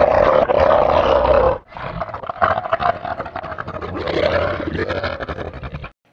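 Dinosaur roar sound effect: two long, loud roars, the second starting about two seconds in and cutting off abruptly near the end.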